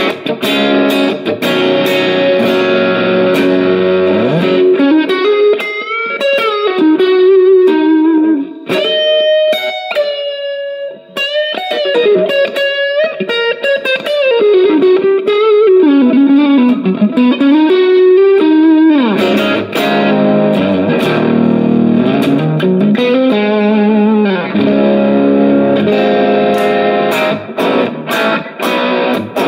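Electric guitar played through a Valeton GP200 multi-effects processor into a Cort CM15R amp. It opens with sustained chords, moves about four seconds in to a single-note lead line with string bends and vibrato, and returns to chords about nineteen seconds in, strummed more choppily near the end.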